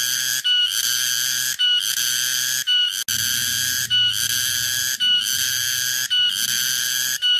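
Garengpung (tonggeret) cicada singing: a loud, high-pitched buzzing song repeated in phrases about once a second, each opening with a short higher note and separated by a brief gap.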